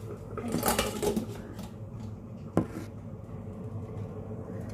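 Stainless pressure cooker lid being closed and its red locking handle swung shut: a short rattle of lid and handle just under a second in, then a single sharp click about two and a half seconds in, over a steady low hum.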